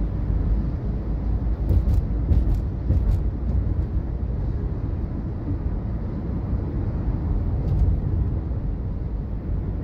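Steady low rumble of a car on the move, with road and engine noise heard from the vehicle. A few faint ticks come about two to three seconds in and again near the end.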